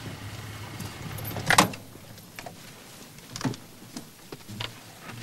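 Car engine running with a low hum that stops about one and a half seconds in, together with a loud car-door thunk. A few lighter knocks and clicks follow.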